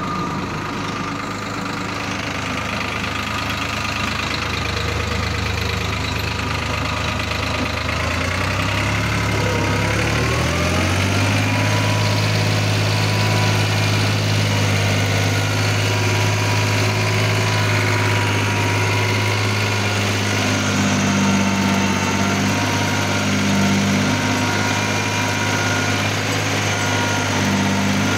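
Tractor diesel engine running under load, driving a Shaktiman rotary tiller (rotavator) through the soil. About ten seconds in the engine speed rises and then holds steady at the higher speed.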